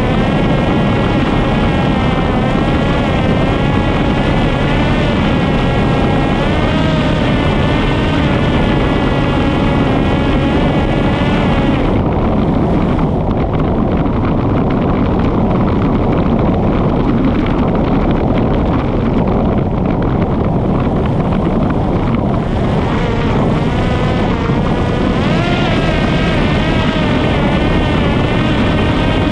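Parrot Disco fixed-wing drone's electric pusher motor and propeller whining, heard from a camera on the airframe over a rush of air. The pitch wavers with throttle, and the higher whine drops away for about ten seconds midway before coming back. The owner says the original motor does not sound right and runs at too high an rpm.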